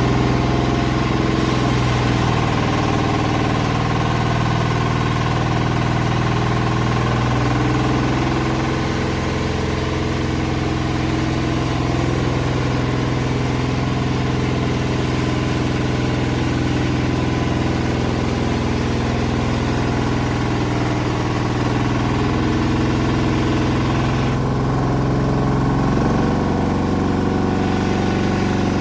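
Large horizontal band sawmill running steadily while sawing a big sapodilla log, its engine giving a continuous loud drone. The tone shifts slightly near the end.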